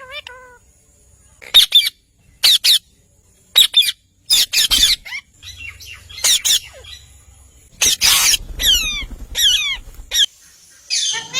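Green ringneck parrots (rose-ringed parakeets) squawking: short, loud bursts of harsh screeching calls, repeated every second or so with quiet gaps between.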